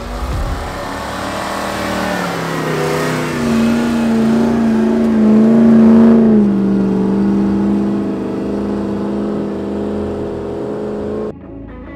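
1989 Toyota Pickup's swapped-in 1UZ V8 engine pulling hard as the truck pushes through deep snow. The engine note rises as it approaches, is loudest as the truck goes past about six seconds in, drops in pitch as it moves away, then holds steady until it cuts off suddenly near the end.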